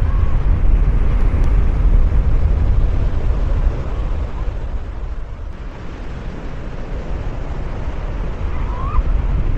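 Torrent of muddy floodwater rushing, a loud steady roar heaviest in the low rumble. It eases slightly midway and builds again near the end.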